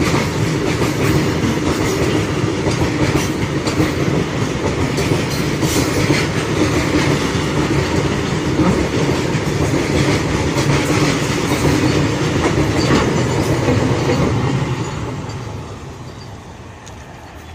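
Freight train of BOXNHL covered wagons rolling past, the wheels clattering over the rail joints in a steady clickety-clack. The noise fades away over the last few seconds as the train moves off.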